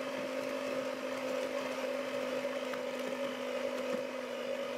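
Electric hand mixer running at a steady speed with a constant whine, its hooks working a stiff, crumbly dough of flour, butter, sugar and egg in a plastic bowl.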